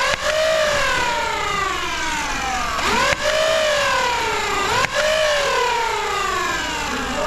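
Flywheel motors of a Nerf Pro Stryfe X foam-dart blaster revving up and spinning down over and over, about every two seconds. The whine jumps up quickly, then sinks slowly. Short sharp clicks at the rev-ups mark darts being fired.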